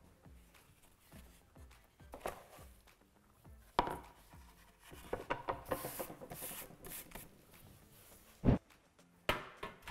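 Hands rolling and patting a soft log of gluten-free cornbread dough on baking parchment over a wooden board: quiet rubbing and paper rustling, with a short knock about four seconds in and a louder dull thump near the end.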